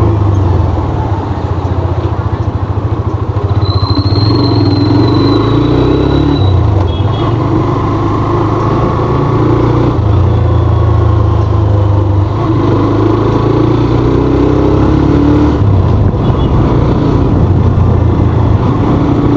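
Hero Xtreme 125R's single-cylinder, four-stroke air-cooled engine running while the bike is ridden, its pitch rising and dipping a few times with the throttle.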